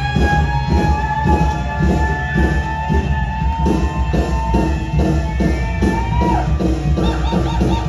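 Live rock band playing a steady beat under one long held note, which drops away about six seconds in.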